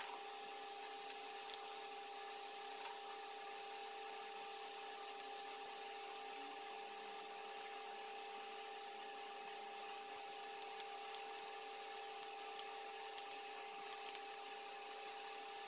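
Faint handling sounds of old heating-element wire being unwound by hand from a toaster's slotted filament cards: scattered light ticks and rubbing. These sit over a steady electrical hum.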